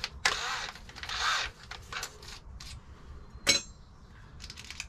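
Small metal drill bits and a cordless drill's chuck being handled during a bit change: a couple of short rattles and scrapes, then a sharp metal clink with a brief ring about three and a half seconds in, and a few light clicks.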